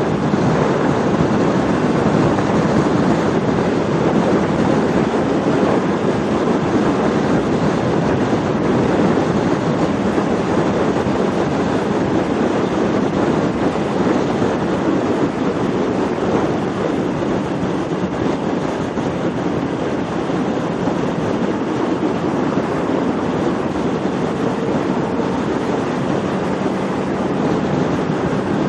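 Kawasaki Ninja 650R's parallel-twin engine running at steady highway speed, largely buried under loud, even wind rush over the microphone.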